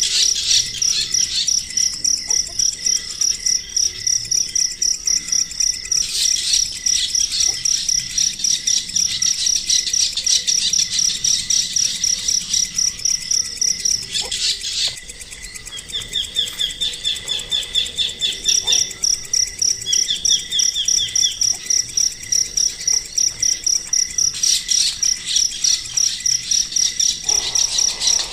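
Insects chirring in a fast, steady pulse, pausing briefly midway, with a few bird chirps and a short trill among them.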